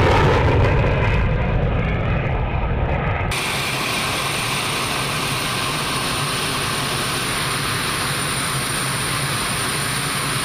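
Jet fighter engine noise. An F-16 climbing away on afterburner fades over the first three seconds. An abrupt cut then brings a steady jet sound from Eurofighter Typhoons in flight, with a thin high whine over it.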